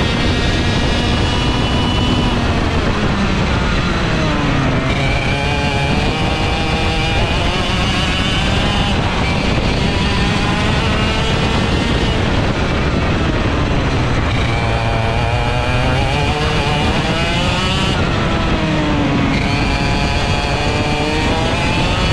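ROK GP 125cc two-stroke kart engine at racing speed, heard from on board: its pitch climbs on the straights and drops sharply as the driver lifts and brakes for corners, several times over.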